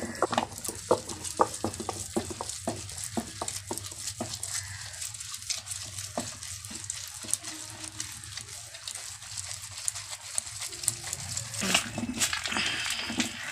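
Soaked urad dal being ground without water in a hand-turned granite aattukal: the stone pestle crunches and scrapes the lentils against the stone base, giving a gritty rasping sound. Irregular sharp clicks and knocks come thick in the first few seconds and again near the end.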